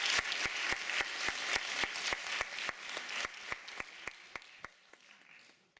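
Audience applauding at the end of a lecture, with sharp claps close to the microphone at an even rate of about four a second over the crowd's clapping. The applause fades steadily and cuts off just before the end.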